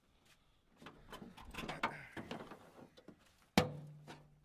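Sheet-metal engine side panel of a vintage MAN tractor being unlatched and swung open: a run of small metal clicks and rattles, then a sharp clank about three and a half seconds in that rings on briefly.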